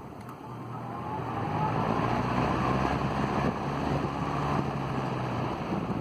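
Restored Emerson Electric 16-inch table fan running: a steady motor hum under the rush of air from the spinning blade. It grows louder about a second in.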